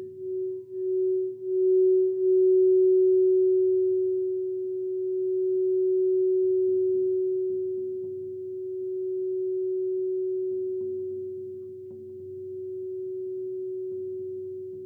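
Crystal singing bowl ringing with one steady pure tone. It swells in quick pulses over the first two seconds as it is played up, then holds, slowly waxing and waning.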